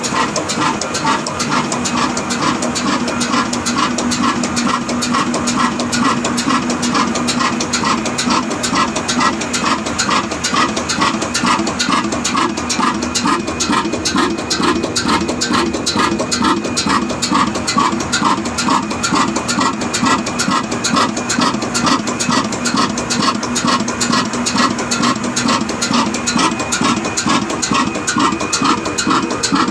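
Desi diesel oil engine running steadily with an even, repeating chugging beat.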